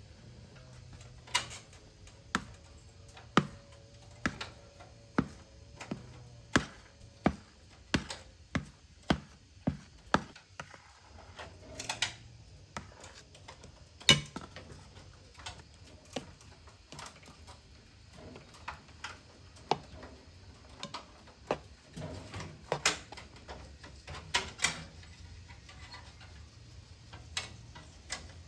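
A series of sharp knocks, about one a second at first and quickening to about two a second, then sparser and irregular, the loudest about fourteen seconds in.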